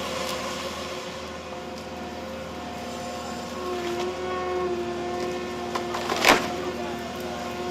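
A heavy machine's engine and hydraulics running steadily, with a few held tones that shift in pitch and level, and one sharp, loud crack about six seconds in.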